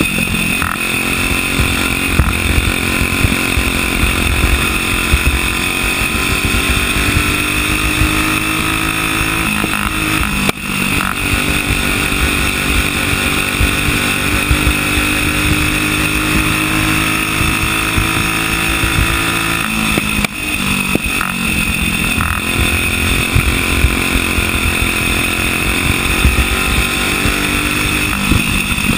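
Single-cylinder flathead racing kart engine heard on board at racing speed, its pitch climbing along the straights and falling back through the turns. Twice, about ten and twenty seconds in, the sound drops sharply for a moment as the throttle is lifted.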